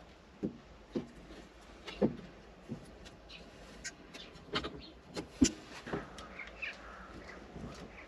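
Scattered light clicks and knocks of pliers and wiring being handled as gel-filled push connectors are squeezed shut on the wires. A few faint high chirps come about six seconds in.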